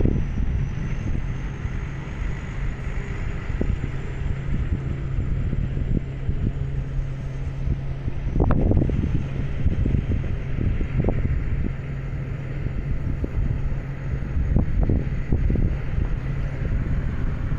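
Wind buffeting the microphone in gusts, strongest about halfway through, over the steady drone of a rice combine harvester's engine at a distance.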